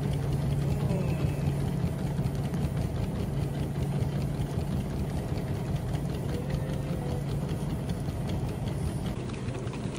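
Dog treadmill running at a steady pace: a constant low motor hum with belt noise and the light footfalls of two small poodles walking on the belt.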